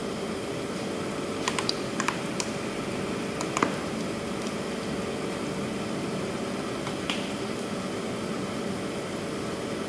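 Steady workshop hum with a few sharp, light clicks and taps: several close together about one and a half to two and a half seconds in, one at about three and a half seconds, and a last one near seven seconds.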